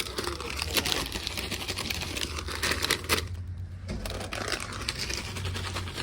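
Crinkly plastic snack bags being handled and loaded into a vending machine: a busy run of crackling and quick clicks, with a short pause a little past halfway.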